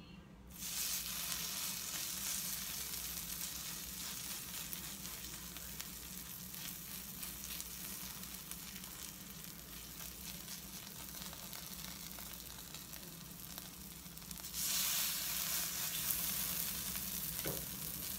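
Chia pancake batter sizzling in butter on a hot griddle, a steady hiss that starts suddenly about half a second in as the first spoonful lands and gets louder about fourteen seconds in as a second spoonful goes down.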